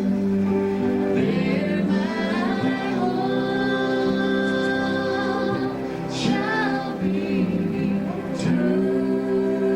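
Live gospel singing: voices holding long notes with vibrato, over a steady instrumental backing.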